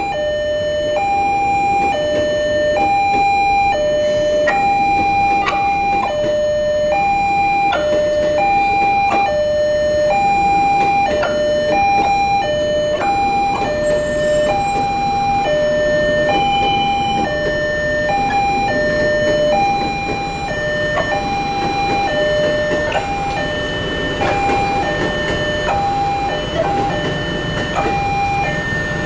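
Railway level-crossing alarm sounding a two-tone electronic chime, a higher and a lower tone alternating about once a second, while a JR 205 electric commuter train runs past over the crossing.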